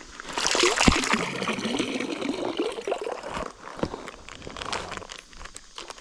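Water splashing and sloshing, loudest about a second in and dying down after about three seconds.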